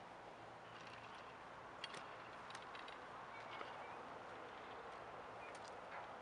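Faint outdoor ambience on a snowy slope: a steady low hiss with a few scattered soft clicks and a couple of brief high chirps.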